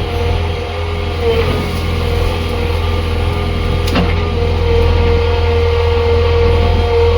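JCB backhoe loader's diesel engine running steadily, with a steady high whine over the low engine note. A single sharp knock comes about four seconds in.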